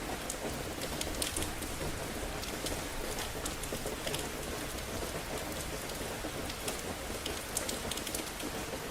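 Steady rain falling on hard surfaces, with scattered sharp drop ticks over a low, even rumble.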